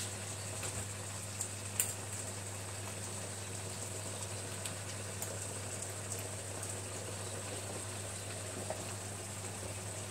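Green beans in tomato sauce simmering in a frying pan over a gas flame: a steady sizzling, bubbling hiss with a few faint pops, over a constant low hum.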